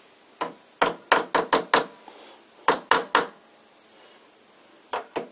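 Sharp knocks as the bronze spindle bearing is tapped into place in an old lathe headstock: a quick run of about six taps, then three, then two near the end.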